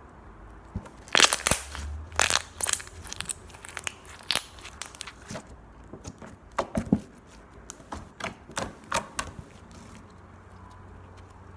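Pink glitter slime being stretched, pressed and kneaded by hand against a tabletop, giving an irregular run of sharp sticky crackles and pops. The pops start about a second in, are loudest at first and die away about a second before the end.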